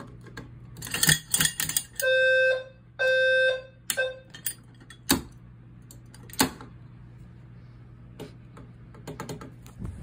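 Fire alarm horn sounding two half-second blasts a second apart and a short third that cuts off, with sharp plastic and metal clicks from the pull station's handle and cover being worked around them.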